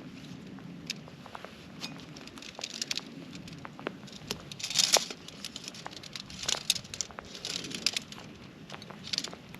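Nylon tent fabric rustling and crinkling, with scattered sharp clicks and knocks, as a Hilleberg tent is unpacked and pitched by hand. The rustling swells about five seconds in and again for a while after six seconds.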